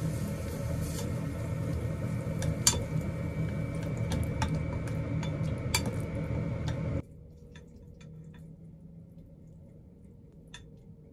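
Gas stove burner flame running with a steady low rumble while a spatula stirs pasta in a pot, its scrapes and taps on the pot giving scattered sharp clicks. About seven seconds in, the rumble stops suddenly, leaving only a few light clicks of the pot and utensil.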